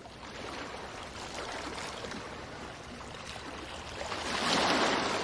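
Ocean waves washing on a beach, a steady rush of surf with one wave swelling loudest about four seconds in.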